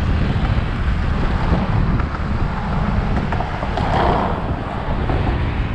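Strong wind buffeting the microphone: a steady, loud rumbling noise.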